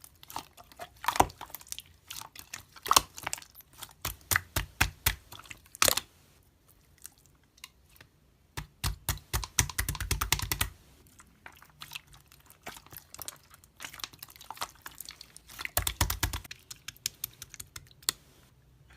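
Sharp clicks and taps in irregular quick runs, with a pause partway through and dense rattling bursts about nine and sixteen seconds in.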